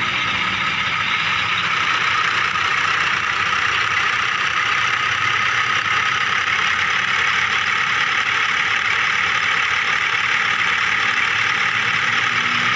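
Small electric motor and plastic gearing of a remote-control toy vehicle whirring steadily at a constant speed.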